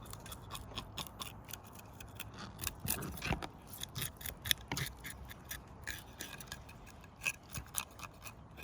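Scales being scraped off a whole tilapia: quick, irregular scraping strokes along the fish's skin, several a second, with a few louder strokes midway.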